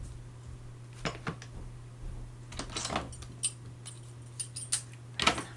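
Light, irregular metallic clinks and taps as the cut aluminium box-section bracket and a 540 RC buggy motor are handled and fitted together by hand, the loudest cluster near the end, over a steady low hum.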